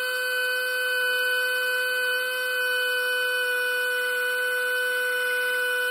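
Power drill running at a steady speed with an even, high whine, spinning a hone inside a rear brake wheel cylinder of a 1950 International Harvester L-120 truck to clean up the cylinder bore.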